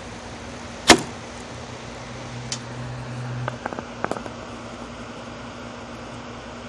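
One sharp snap about a second in: a homemade balloon-and-bottle pocket slingshot firing a load of salt. A low hum lasts about two seconds after it, then a few light ticks.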